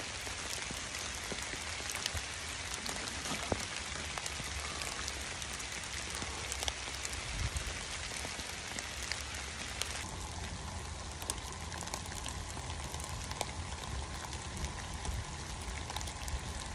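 Steady rain falling on wet leaf litter, with scattered sharp drop ticks. The tone of the noise shifts abruptly about ten seconds in.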